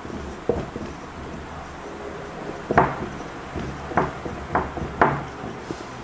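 Dry-erase marker writing on a whiteboard: a string of short scratchy strokes and taps of the pen tip on the board, about six of them, the loudest a little under three seconds in.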